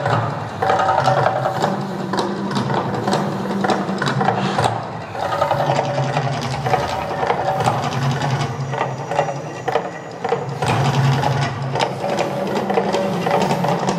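The Mirage volcano show at full eruption: a loud, continuous mix of its amplified soundtrack with fast, rattling drumming and the rush of the gas fire effects.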